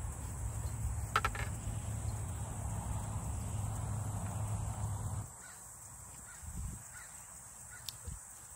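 Steady low outdoor rumble with a single short, harsh bird call about a second in. A little past halfway the rumble cuts off, leaving quiet ambience with a few faint high chirps.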